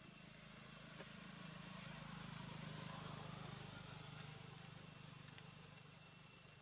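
Faint low drone of a distant vehicle engine that swells about halfway through and then fades, over two steady high thin tones and a few light clicks.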